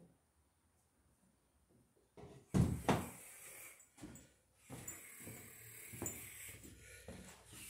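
Two heavy knocks about two and a half seconds in, then shuffling footsteps and rustling close to the microphone.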